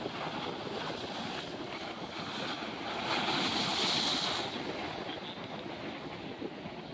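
Ocean surf washing against the jetty's boulders, a steady hiss of water with wind buffeting the microphone. About three seconds in, a wave breaks and splashes over the rocks, louder for a second or so, then drains away.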